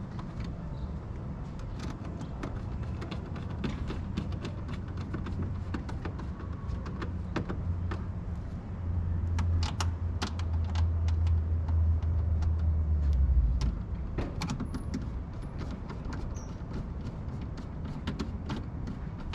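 Scattered sharp plastic clicks and knocks as the cold air intake's airbox lid is pressed down and seated, over a low rumble that grows louder in the middle and cuts off suddenly about thirteen seconds in.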